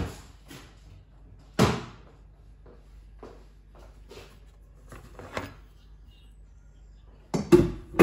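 Kitchen dishes and utensils knocking as they are handled for washing up: a few sharp knocks, the loudest about one and a half seconds in, and a quick cluster of knocks near the end as a plastic cutting board and knife are lifted off the worktop.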